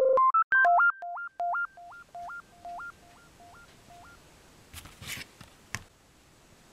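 Short synthesizer intro jingle: electronic beeps hopping back and forth between two pitches, repeating and fading away over the first few seconds. About five seconds in come a few brief rustles and a sharp click as a plastic CD jewel case is handled and turned.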